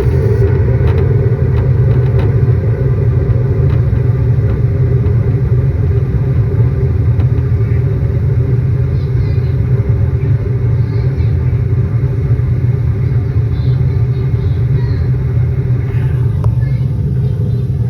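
Rheem furnace running steadily through its startup, a loud, even, low rumble.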